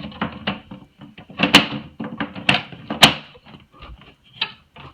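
Plastic Sortimo/Bosch L-Boxx toolbox being set down and snapped onto plastic mounting clips: a string of sharp clacks and knocks, the loudest about one and a half and three seconds in.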